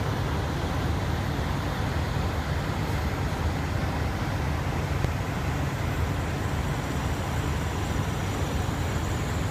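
Many parked diesel semi-trucks idling together: a steady, unbroken low engine drone with a haze of noise above it.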